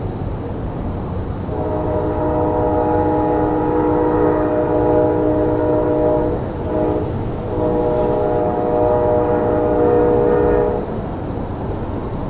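Diesel locomotive air horn sounding two long blasts, a chord of several steady tones, with a short break between them, over a steady low rumble.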